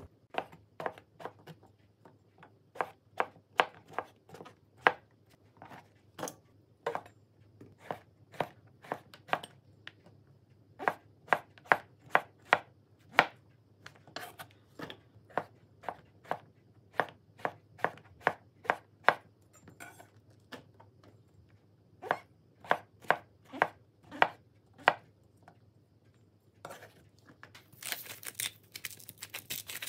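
A chef's knife slices king oyster mushrooms on a plastic cutting board: sharp knocks of the blade hitting the board, one or two a second, with short pauses. Near the end comes a few seconds of dense, hissing rustle as salt is sprinkled over the cut mushrooms in a stainless-steel bowl.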